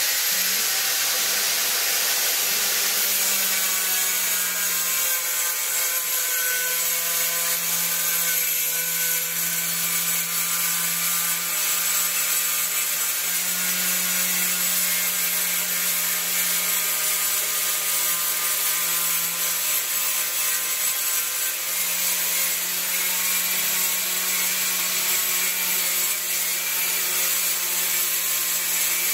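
Angle grinder in a 45-degree chamfering guide grinding along a tile edge, cutting a 45-degree bevel. It runs steadily under load, an even pitched hum over the grinding noise.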